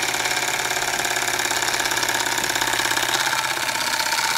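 Century-old Bing vertical model steam engine running at top speed with the throttle open: a fast, even rhythm of beats and mechanical clatter from the engine and its spinning flywheel, over a steady hiss of steam from an engine that leaks everywhere.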